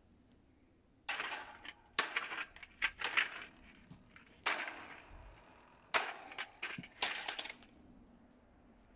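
A stand fan's plastic body and wire guard being struck: about six sharp knocks and rattly crunches, some in quick clusters, as the fan is hit and knocked over.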